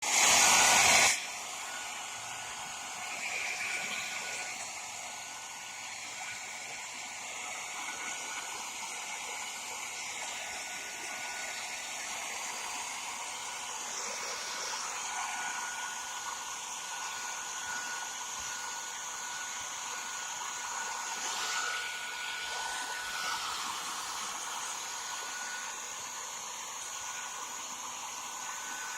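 Hairdryer blowing steadily, a hiss with a constant high whine, heating a motorcycle headlamp to soften its lens sealant. About the first second is much louder and cuts off suddenly.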